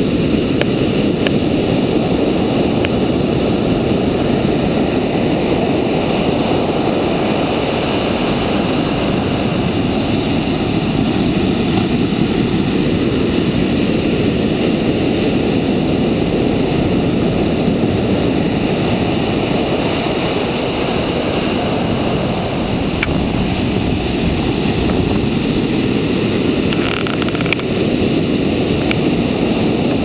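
Ocean surf breaking and washing up the sand, heard close at the water's edge as a steady, dense rush of noise with little rise and fall.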